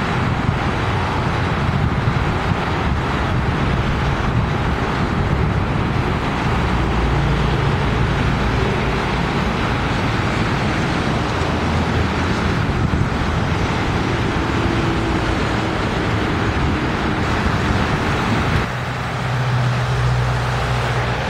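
Road traffic: a steady rumble of car and bus engines and tyres on a busy road. It changes abruptly near the end to a steadier, lower engine hum.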